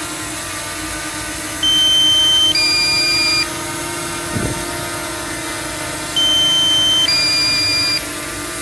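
DJI Mini 2 SE drone hovering with a steady propeller whine, while a two-tone electronic warning beep sounds twice, each round a pair of tones about a second apart, the low-battery alert for the nearly drained battery.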